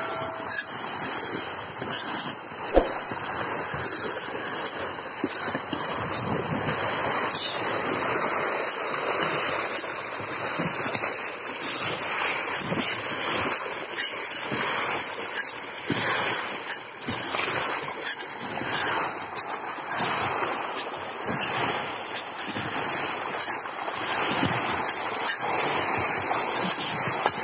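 A crowd of pangas catfish splashing at the pond surface as they feed: a continuous churning of water with many small slaps and splashes.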